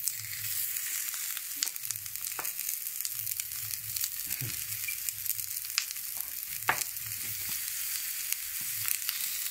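Hot dogs and napa cabbage sizzling on a hot stovetop grill pan: a steady high hiss broken by scattered sharp pops and crackles, about half a dozen of them.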